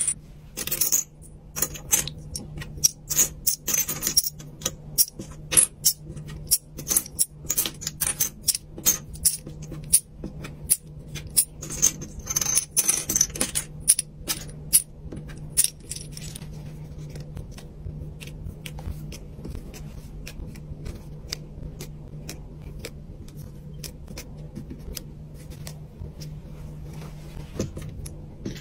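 Small plastic chips clicking and clattering as they are dropped, picked up and sorted by hand on a tabletop: dense, sharp clicks for about the first half, then fewer and softer ones, over a low steady hum.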